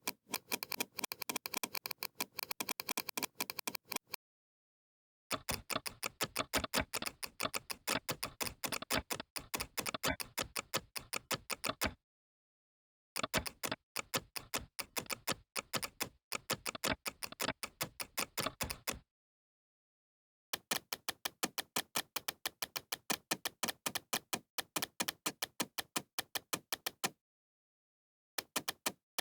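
Bandicam screen recorder's mouse-click sound effect, repeated in fast runs of many clicks a second. The runs are broken four times by a second or so of dead silence.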